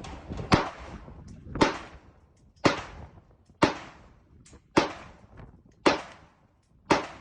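Gunshots fired at a steady pace: seven sharp shots about a second apart, each followed by a short echo.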